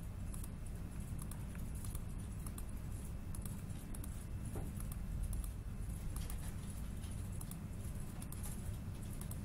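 Steady low room hum with a few faint, scattered clicks of a computer mouse as on-screen objects are selected one by one.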